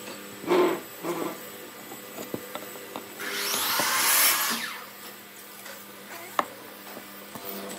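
Masking tape pulled off its roll in one long rip of about a second and a half, the loudest sound. Brief rustles and knocks come from the tape and wooden board being handled around it.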